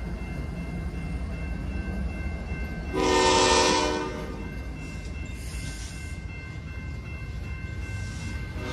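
CN intermodal freight train rumbling past a grade crossing, its locomotives and then double-stack container cars going by. About three seconds in, a train horn sounds once for about a second, over the steady ringing of the crossing signals.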